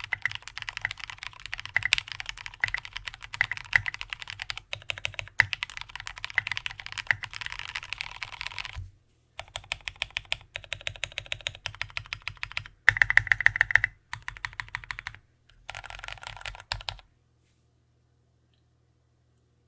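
Typing on an aluminium-plate mechanical keyboard with fully lubed linear Cherry MX Black switches and SA-profile keycaps: fast, continuous keystrokes, then about 9 s in, separate runs of repeated presses on the stabilized keys, one run noticeably denser and louder. The typing stops about 17 s in.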